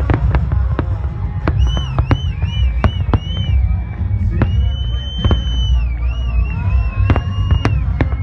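Fireworks display: repeated sharp bangs over a heavy low rumble, with a high wavering whistle that runs through most of the middle and end.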